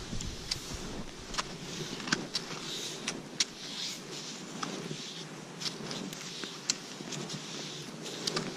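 Skis swishing and crunching through deep powder snow in a slow stride, with scattered sharp clicks every second or so.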